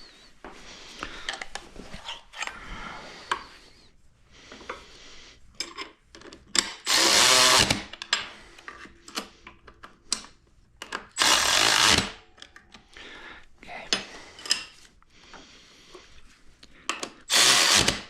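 Power drill-driver running bolts snug in three short bursts of about a second each, with clicks and handling of tools and parts between them.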